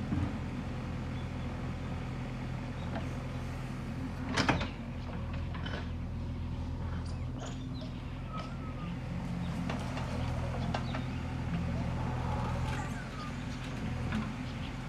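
JCB machine's diesel engine running steadily at a low, even note, with scattered clicks and one brief loud noise about four and a half seconds in.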